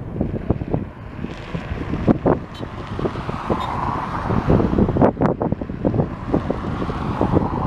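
Gusty wind buffeting the microphone, the loudest thing throughout. Underneath is the steady jet noise of an Airbus A321-211's two CFM56-5B engines at takeoff thrust as it rolls down the runway.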